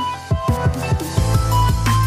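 Electronic background music with a steady beat and pitched synth notes; a heavy bass line comes in about a second in.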